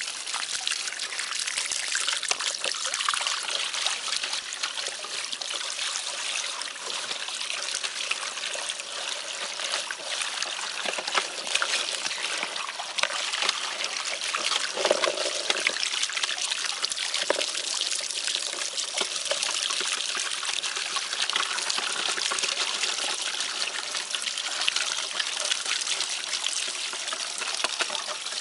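Water from a garden hose running steadily into a plastic gold pan as hands wash and stir muddy ore in it over a sluice box, a continuous trickle and splash with small clicks mixed in.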